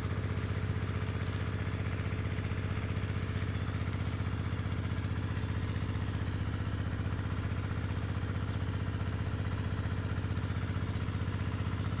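A motor running steadily at constant speed, giving an even low hum.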